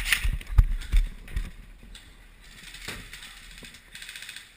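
Bumps and rustling of movement, then two bursts of rapid, evenly spaced mechanical clicking from an electric airsoft gun firing on full auto, about fifteen shots a second.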